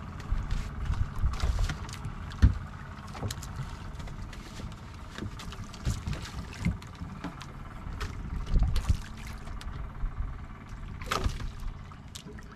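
Water lapping and splashing against a small fishing boat's hull, with scattered knocks and clicks on board.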